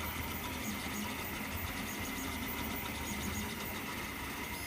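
Duplicator 5 FDM 3D printer running mid-print: a steady mechanical whir and hum, with short high stepper-motor tones that come and go as the extruder head moves.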